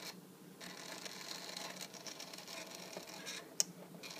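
A 200-step stepper motor, driven by an L298N H-bridge motor shield and turning a plastic gear, runs with a steady hum and a rattling buzz; it rattles because no pulley is fitted. It drops away for about half a second near the start, then runs again in the other direction. There is one sharp click about three and a half seconds in.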